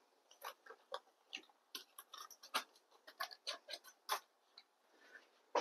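Knife tapping and scraping against a stainless steel mixing bowl as cubed butter is pushed off its wrapper into the flour: a quick, irregular run of light clicks, thinning out after about four seconds with one more at the very end.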